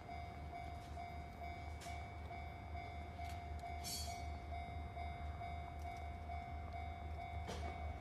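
Japanese railway level-crossing warning bell ringing in a steady, regular pulse, with a train approaching in the background: a double-headed diesel freight led by a DD51 and a DF200 locomotive.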